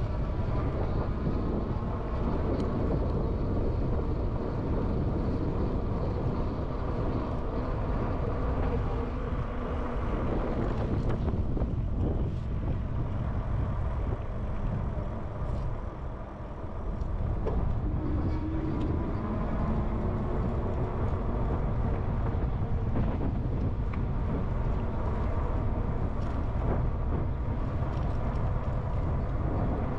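Wind buffeting the microphone and rolling noise from an e-bike riding along a paved pathway, with a faint whine of several steady tones; the noise eases briefly about sixteen seconds in.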